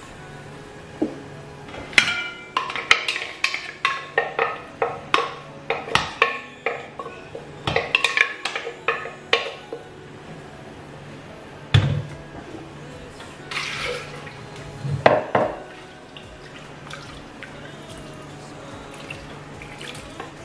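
Wooden spoon tapping and scraping thick blended purée out of a glass blender jug into a stainless-steel pot: quick ringing knocks, several a second, for about seven seconds, then a few single louder knocks, with rinse water poured from the jug into the pot.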